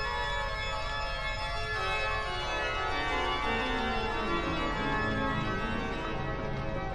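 Organ music from a film soundtrack: sustained chords, with a run of low notes stepping downward about halfway through, over a low steady rumble.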